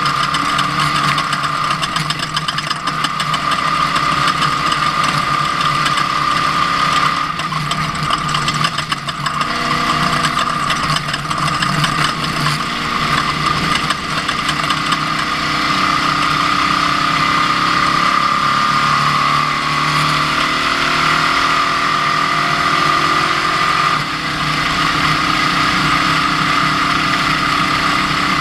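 Ford Ranger off-road race truck driving, its engine pitch rising and falling with a steady high whine over it and a constant rattle.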